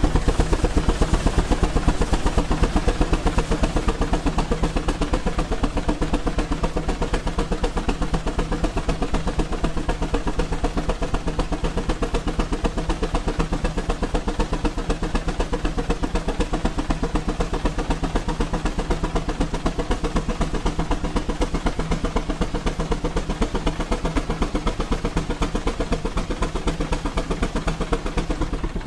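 Steam traction engine running steadily while it drives a flat belt, a fast, even beat that does not let up.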